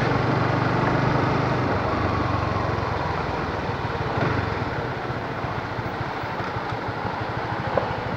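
Manual-clutch motorcycle engine running as the bike rides at low speed; a few seconds in, the engine note drops and the firing pulses slow as the bike eases off.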